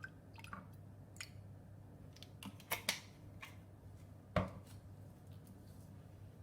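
Kitchen handling sounds: scattered light clicks and taps of utensils and dishes, with one louder knock about four seconds in.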